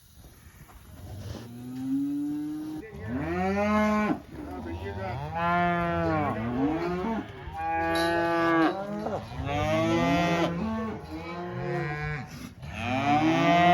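A pen of weaned beef calves bawling, with many overlapping long moos one after another, starting about a second in and loudest near the end. This is the steady bawling of calves newly separated from their mothers.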